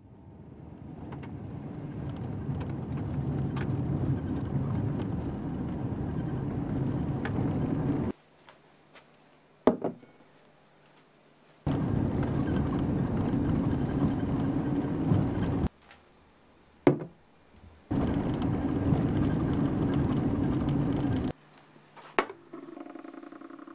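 Car running on the road, a steady rumble that fades in and is then cut off abruptly three times, with single sharp clicks in the short gaps. A steady low hum starts near the end.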